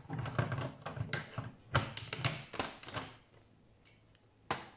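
Hand tools (pliers and side cutters) clicking and rattling against the metal chassis and parts of an opened VCR as small bits of copper wire are worked loose. A dense run of clicks lasts about three seconds, then one sharp click comes near the end.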